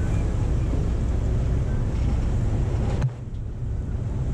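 A moving tour boat's engine drone and water rush, with wind buffeting the microphone. About three seconds in the rushing drops off abruptly, then builds back.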